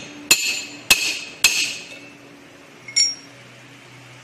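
Hammer blows on the steel wheel hub of an Isuzu Elf truck, knocking at the hub studs to drive them out: three sharp metallic strikes with a ringing tail, about two-thirds of a second apart, then a lighter metal clink about three seconds in.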